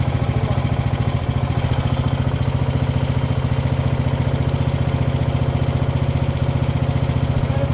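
Craftsman riding lawn mower engine running steadily at idle, with a rapid, even firing beat and no change in speed.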